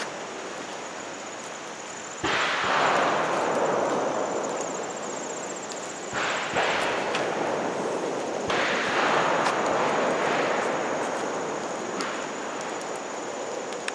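A steady rushing, hissing wash of water noise, most likely rain and the creek. It comes in several sections that jump up suddenly and then ease off a little.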